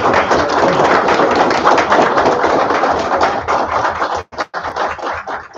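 Audience in a meeting room applauding, a dense patter of clapping that thins to a few scattered claps after about four seconds and dies away near the end.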